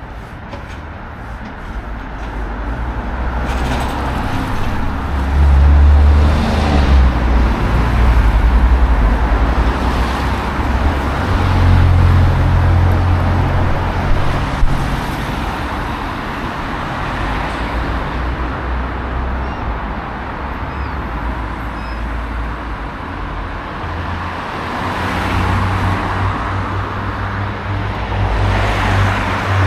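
Road traffic: several cars passing one after another, their tyres hissing on a wet road, with a low rumble that swells and fades.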